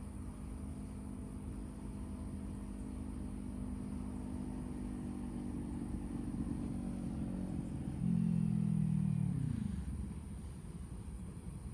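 A car going past on the road, its engine hum building slowly, loudest about eight seconds in, then dropping in pitch and fading as it passes.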